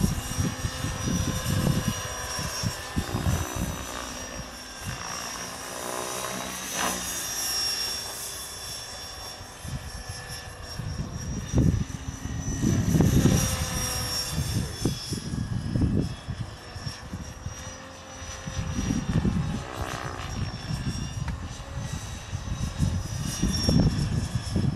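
Gaui Hurricane 550 flybarless electric RC helicopter in flight: a steady whine of motor and rotor blades that sweeps in pitch twice as it manoeuvres and passes. Wind rumbles on the microphone in gusts.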